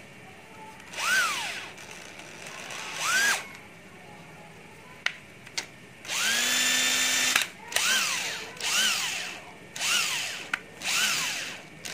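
Cordless drill-driver motor run in trigger bursts. Each burst whines up in pitch and winds back down: two short ones first, then a steady run of over a second, then a string of quick pulses.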